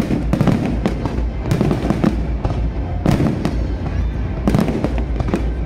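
A fireworks display: aerial shells bursting in quick, overlapping bangs and crackles, several a second, over a continuous low rumble.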